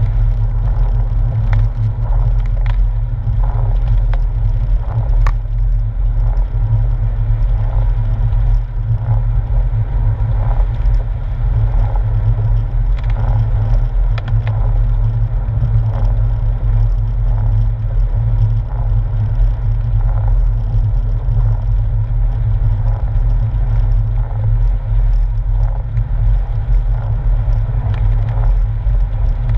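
Steady low drone of a Porsche 997 driving on a wet road, heard from inside the cabin: the flat-six engine and tyre noise, with faint scattered ticks over the top.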